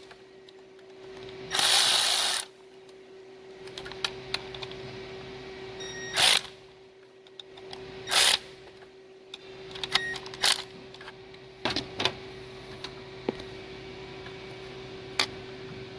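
A cordless power tool run in short bursts, about one second long then two briefer ones, driving fasteners on a BMW V8's valve cover area, with scattered tool clicks and knocks afterwards. A faint steady hum sits underneath.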